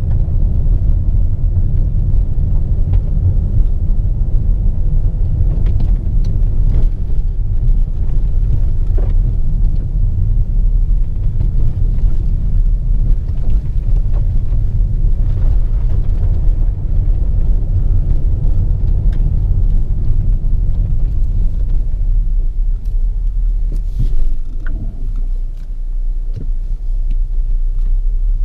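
Volvo XC40 T5 AWD being driven: a loud, steady low rumble with scattered light knocks, the rumble easing briefly near the end.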